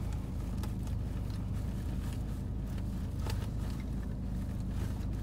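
Car engine idling, a steady low hum heard inside the cabin, with a few faint clicks.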